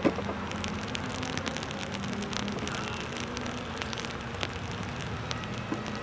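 Rain falling, with many sharp drop ticks close by, over the steady distant drone of classic Mini race cars' engines out on the circuit.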